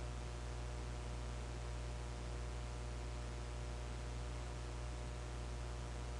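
Steady electrical hum with a faint, even hiss: the noise floor of the narrator's microphone, with no other sound.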